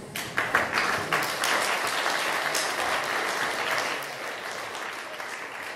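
Audience applauding: dense clapping that swells within the first half second, holds steady for a few seconds and then tapers off toward the end.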